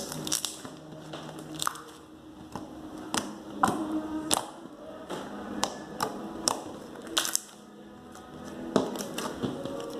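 Glossy glitter slime with styrofoam beads being squeezed and pressed by hand close to the microphone: irregular sharp clicks and pops, about fifteen in all, with soft crunching and squishing between them.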